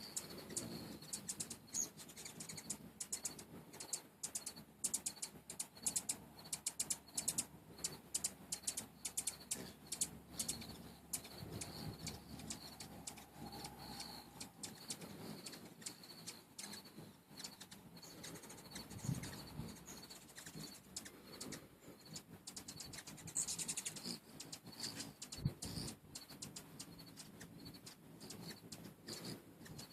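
Hummingbirds hovering at a feeder: wings whirring, with a continual run of short, high chip notes.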